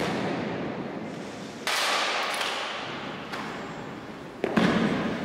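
Sharp strikes from soldiers' rifle drill, rifles slapped and grounded on a stone floor, four times about a second and a half apart, each followed by a long echo in a large church. The last strike is the loudest.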